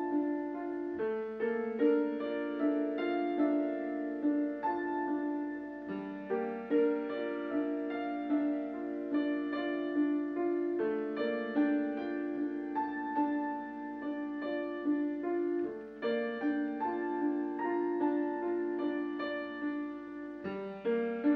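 Background piano music, with sustained notes and chords changing every second or so.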